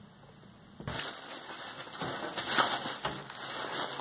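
Cardboard box and packing for a PC case being opened and handled: irregular rustling, scraping and crinkling that starts about a second in.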